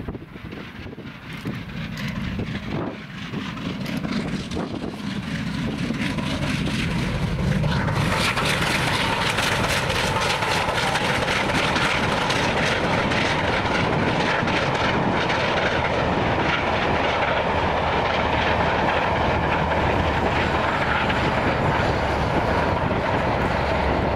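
Bulleid Battle of Britain class steam locomotive 34067 Tangmere working hard uphill with a passenger train. Its exhaust beats grow louder over the first eight seconds or so as it nears. Then comes a steady, loud run of exhaust and coaches rolling by close at hand.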